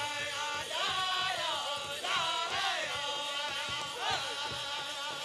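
A powwow drum group singing a contest song for chicken dancers: several men's voices in unison, high-pitched, with sliding phrases, over a steady beat on the big powwow drum.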